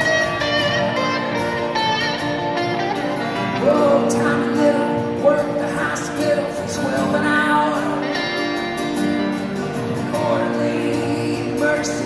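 Live band music: acoustic guitars playing a song, with singing coming in about four seconds in.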